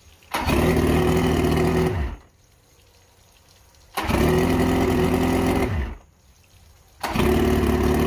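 Mercury outboard engine turning over in short bursts: twice it runs for under two seconds and winds down, falling in pitch, then about seven seconds in it starts again and keeps running.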